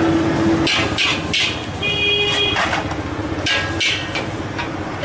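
Busy street ambience: traffic and motorbikes running steadily, with several sharp clatters and a brief high-pitched tone about two seconds in.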